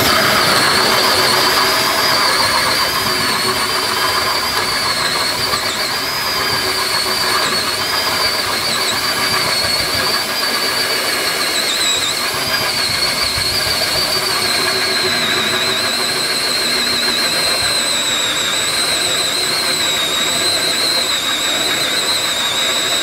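Cordless drill running steadily under load, driving a Bosch multi-blade hole saw through a wooden board. Its high motor whine holds on without a break and drops a little in pitch as the saw cuts.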